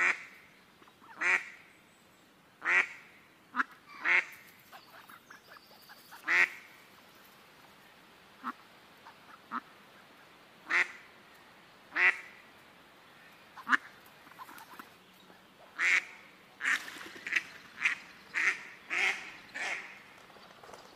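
Ducks quacking: single loud quacks every second or two, a few fainter short ones in between, and a quicker run of quacks near the end.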